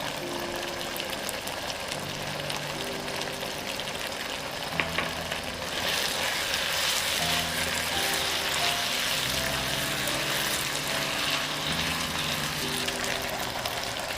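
Marinated chicken sizzling in hot oil in a pan during a stir-fry, with a couple of sharp clicks about five seconds in. The sizzle grows clearly louder about six seconds in.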